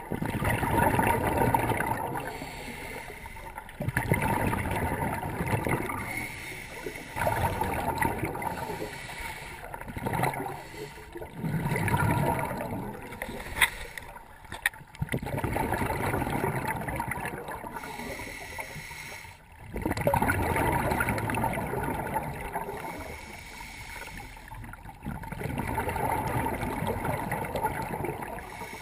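Underwater scuba regulator breathing: exhaled bubbles rush out in bursts of a few seconds, one every three to five seconds, with quieter inhalations between. Two short sharp clicks sound near the middle.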